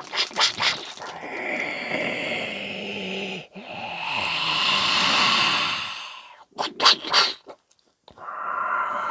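Clear plastic prize bag crinkling as a mini xenomorph figure is pulled out, between two long breathy hisses with a low growl in them, like a xenomorph's hiss. The crinkling comes at the start and again about two-thirds of the way through.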